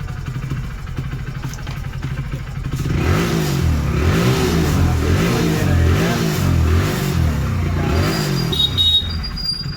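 A motorcycle engine idling, then revved up and down over and over for about five seconds from about three seconds in, before settling back to idle. A short high-pitched ring sounds near the end.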